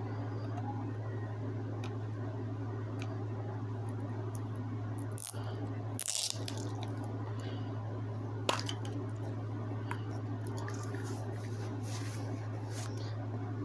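Scattered clicks and crinkles of earbud packaging being handled and worked open, the loudest a cluster about six seconds in and a sharp click about eight and a half seconds in, over a steady low hum.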